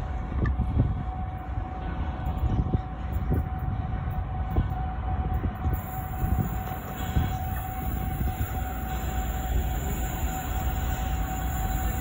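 Diesel freight locomotives idling in a rail yard: a steady low rumble with a constant whine above it.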